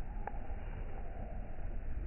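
Wind buffeting the microphone outdoors: a steady, uneven low rumble, with one brief faint squeak about a quarter second in.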